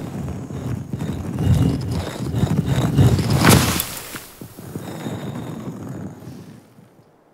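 Stone grinding as a giant carved stone head's jaw drops open: a low, rough grating rumble, loudest about three and a half seconds in, fading out near the end.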